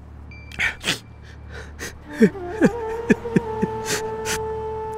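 A man crying, with sharp gasping breaths again and again. From about halfway a long held note of soft background music comes in and carries on.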